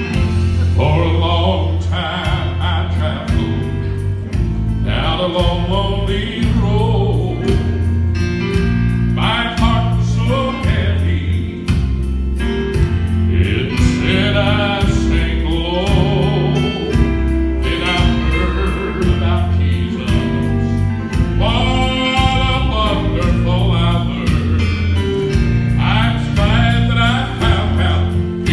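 Gospel song sung into microphones over an instrumental accompaniment with a heavy, steady bass line.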